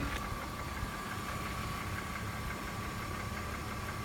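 BMW M54B25 2.5-litre straight-six idling steadily after a cold start, with the engine knock the owner is concerned about.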